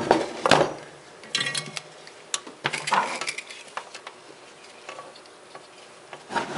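Knocks and metallic clinks as a circuit board and small hand tools are handled on a workbench. Several come in the first three seconds, one of them with a short ring, and one more comes near the end.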